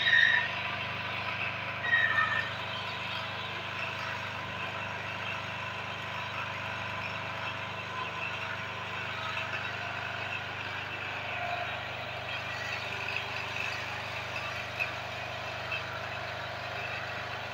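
Steady engine-like hum with a constant background noise, and two brief high-pitched sounds in the first couple of seconds.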